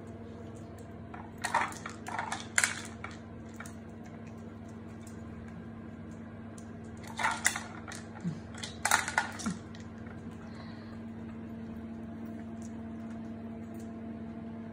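Plastic treat canisters of a dog puzzle toy clacking and rattling as a puppy noses them round to spill kibble, in two short bursts of clatter a few seconds apart.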